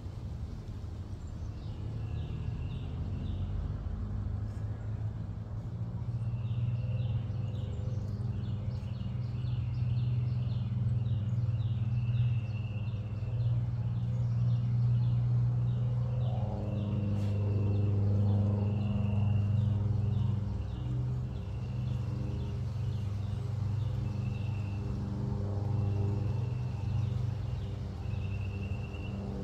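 A steady low engine-like drone that grows louder a few seconds in, with a bird calling over it in repeated series of short chirps.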